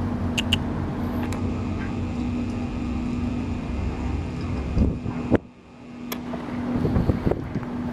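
Motorcycle engine idling steadily with a low hum, with wind noise on the microphone. About five and a half seconds in, the sound drops away suddenly for a moment, then builds back up.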